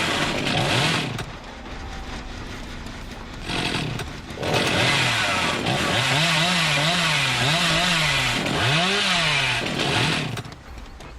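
Chainsaw engine running and being revved, its pitch rising and falling about twice a second in the second half, with a quieter stretch early on and a drop in level near the end.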